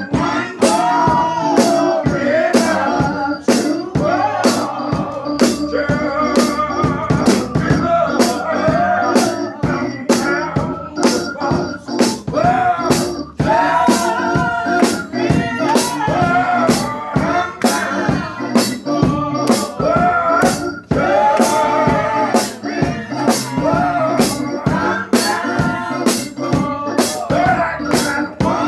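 Gospel singing led by a man on a handheld microphone, amplified, with other voices joining and hand claps keeping a steady beat about twice a second.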